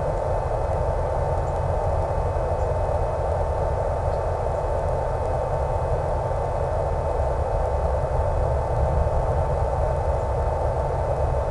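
Brushless electric motor and 11x7 propeller of an RC Super Cub in steady cruise, heard over the plane's FPV audio link with wind rush: a steady rushing noise with a constant high whine.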